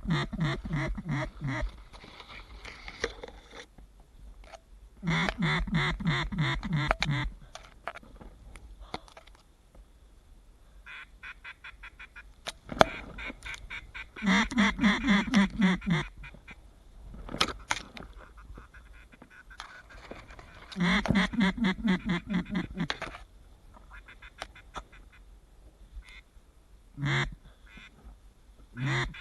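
Duck call blown in runs of rapid quacks, each run about two seconds long, repeated four times with a few shorter quacks between, as a hunter calls to passing ducks.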